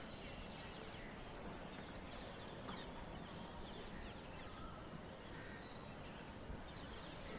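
Dawn outdoor ambience: a steady background hiss with many faint, short bird chirps scattered throughout.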